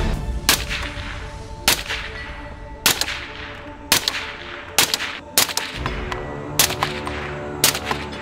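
A suppressed 300 Blackout rifle fired through an Energetic Armament Peak 30 silencer with its .30 cal front cap: about eight shots, each a sharp report with a short ringing tail, roughly a second apart. Background music plays underneath.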